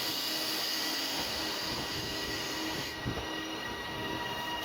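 Nuclear flask train passing: a steady rail and wheel noise carrying several thin steady whining tones, the upper hiss dropping away about three seconds in.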